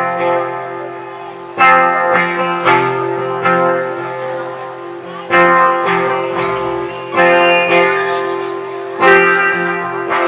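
Live band instrumental passage: guitar chords struck every one to two seconds and left to ring out, over steady low sustained notes.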